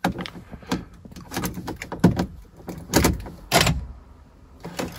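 Scattered clicks and a few dull knocks from someone working the key and controls inside a VW Touareg. No starter or engine sound: the car does not crank.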